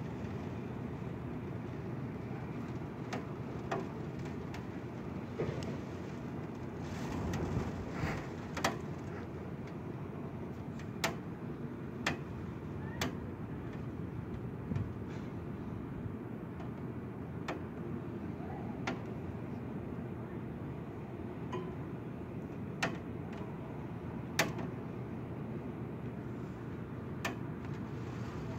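Wind and rain in a steady rush that swells once about a quarter of the way in, with irregular sharp taps every second or two from raindrops striking near the window.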